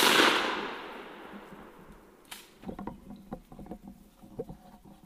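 A single shotgun shot, loud and sudden, echoing away through the woods over about two seconds. About two seconds after it comes one sharp click, then light crackling and rustling.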